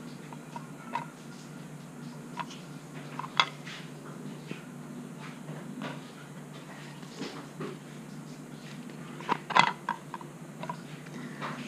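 Scattered light clicks and taps of small parts being handled on a plastic motorcycle speedometer housing while its little screws are fitted, over a steady low hum. One sharper click comes about three seconds in and a cluster of knocks comes near the end.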